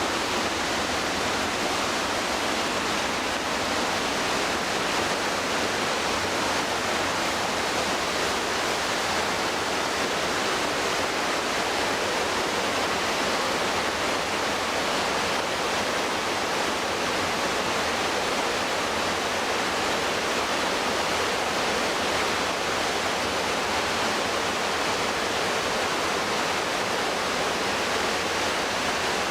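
White water of the McKenzie River rushing steadily, a dense, unbroken hiss of falling and tumbling water.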